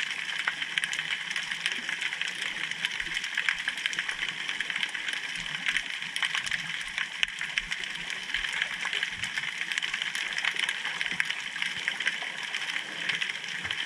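Underwater sound picked up by a camera rig resting on the bottom beside a pier piling: a steady hiss with dense, irregular crackling clicks.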